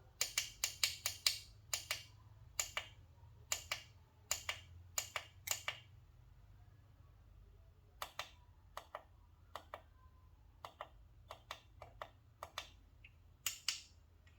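Quick clusters of sharp, light clicks from small hard parts being handled, loudest in the first six seconds and fainter and sparser after that, over a low hum.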